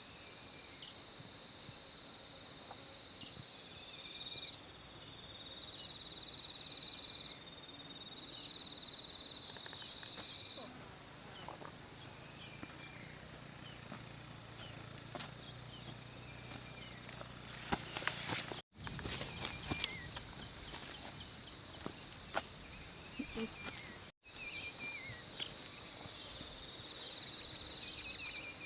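Dense chorus of insects trilling high and steadily, with a pulsing rhythm and a second, lower trill in the first ten seconds. A few faint clicks and rustles come through underneath. The sound cuts out for an instant twice near the end.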